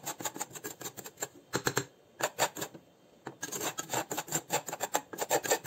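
Metal spoon scraping and clicking against a stainless steel saucepan while stirring a gritty, drying soil sample: quick scrapes several times a second, with a short lull about halfway.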